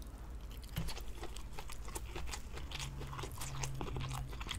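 Close-miked eating of a toasted sweet-bread sandwich filled with tuna steak and raw honeycomb: chewing with many small crunches and wet mouth clicks.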